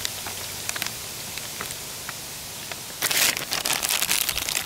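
A steady faint hiss with scattered small ticks, then about three seconds in, loud crinkling and crackling of the plastic MRE flameless ration heater bag being handled and folded over.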